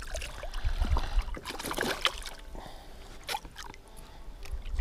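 A hooked bass thrashing at the water's surface beside a canoe as it is landed: irregular splashes and sloshing water.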